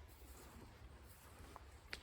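Near silence: faint low background rumble, with one short sharp click near the end.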